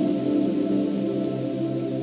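Slow ambient background music of long held notes.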